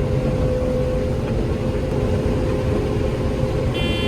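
Combine harvester running steadily while harvesting corn: a constant low machine drone with a steady hum. A short high beep sounds near the end.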